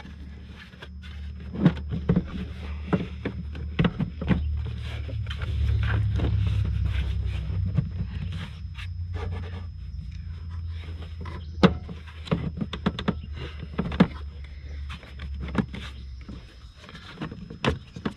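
A hard plastic intake airbox knocking, clicking and scraping against the engine bay as it is worked down into place, with a sharp knock about eleven and a half seconds in. A steady low hum runs underneath and swells around six seconds in.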